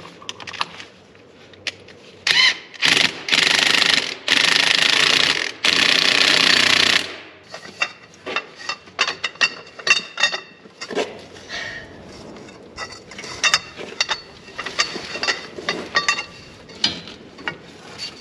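Cordless impact wrench hammering in four bursts, the last three about a second each, tightening a tine-holder bolt on a rotary harrow. From about seven seconds in there are scattered sharp metallic clicks and clinks as a wrench and long steel bar are worked on the bolt.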